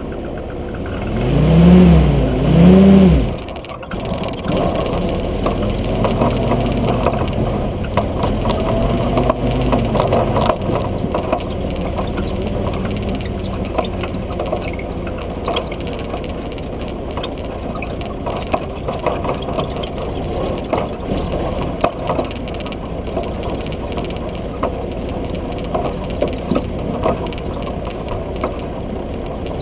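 Military jeep's engine revved twice in quick succession, then running steadily as the jeep drives along, with the open body and fittings rattling throughout.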